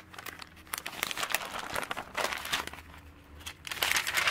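Pages of a paper sales catalogue being turned and handled, rustling in a few bursts, the loudest near the end.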